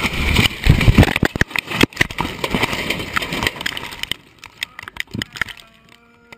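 An aircraft crash heard from inside the cockpit: loud engine and wind noise breaks into a rapid clatter of impacts and cracks over the first few seconds. It then dies down to scattered knocks, with a short pitched tone that sags in pitch near the end.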